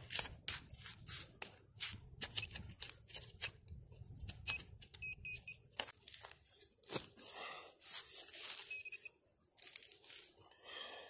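A hand digger cutting and tearing through turf and soil, with quick ripping and crunching strokes over the first half. Short high electronic beeps from a metal detector come in a few times from about the middle on, signalling metal near the search head.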